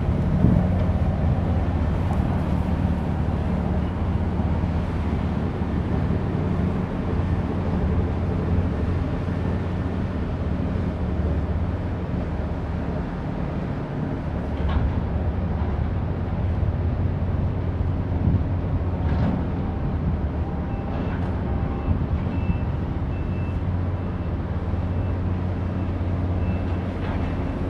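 Steady low drone of a large general cargo ship's engine as the ship glides past close by.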